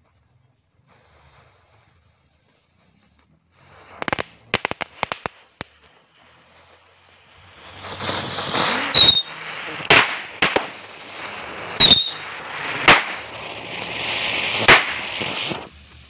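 Assorted small fireworks going off on pavement: a quick string of sharp cracks about four seconds in, then from about seven seconds a continuous fizzing hiss of burning spinners and smoke bombs, broken by several loud bangs and two short falling whistles. The hiss dies away just before the end.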